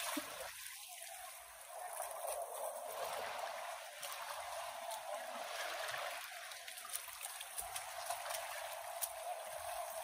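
Kenai River water rushing past in a steady hiss, with a few faint clicks.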